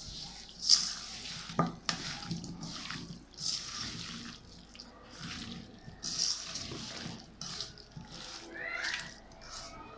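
Water splashing and sloshing in a sink in short, irregular bursts, with a couple of sharp knocks about a second in.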